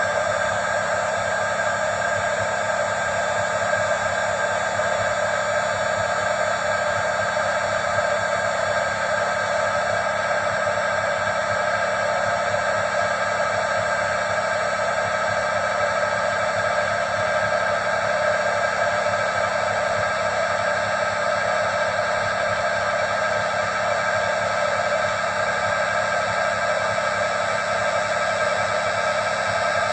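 A small electric blower running steadily, a constant whir with several steady tones in it.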